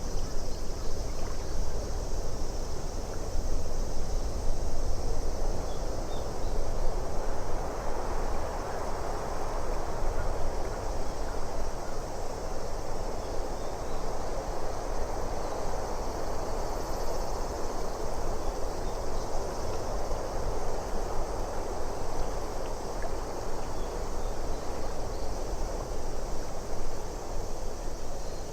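Steady lake ambience of moving water with wind, a continuous even wash of noise with a low rumble beneath it.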